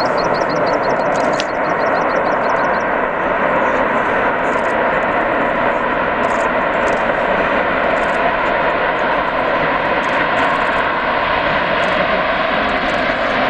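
Antonov An-225 Mriya's six turbofan engines giving a loud, steady rushing roar as the jet rolls out on the runway after touchdown. A rapid high chirping, about six a second, sounds over it for the first few seconds.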